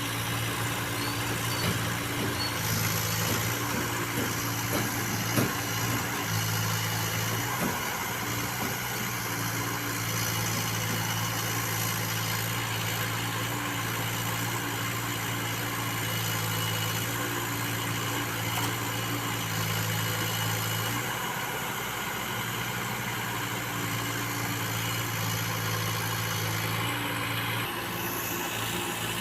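Backhoe loader's diesel engine running steadily, with a couple of short knocks in the first few seconds.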